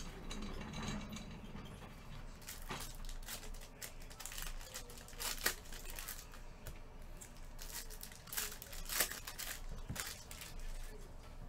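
Trading card pack wrappers crinkling and tearing as packs are ripped open, and the cards inside are handled. It is an uneven run of crackles, sharpest about five and a half and nine seconds in.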